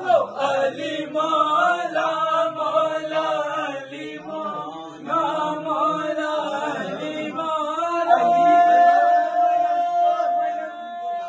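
Male voices chanting a manqabat, an Urdu devotional song in praise of Ali, with a melodic line that rises and falls. About eight seconds in, it settles into one long held note.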